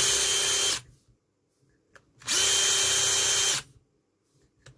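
Cordless drill spinning a pencil inside a handheld plastic pencil sharpener in two short bursts: a steady motor whine with the hiss of the sharpener's blade scraping the pencil. The first burst stops just under a second in; the second starts about two seconds in and lasts about a second and a half.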